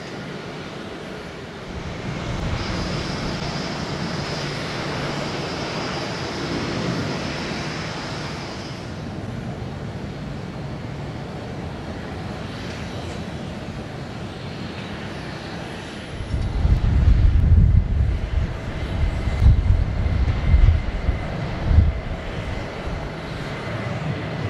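Jet airliner engines running at an airport: a broad rush with a high steady whine over the first several seconds. A deep, uneven rumble comes in about two-thirds of the way through and is the loudest part.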